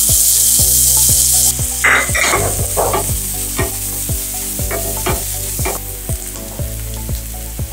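Finely chopped red onions frying in hot oil in a kadai. A loud sizzle drops suddenly about a second and a half in and settles to a quieter frying hiss, with a spatula stirring and scraping through the onions.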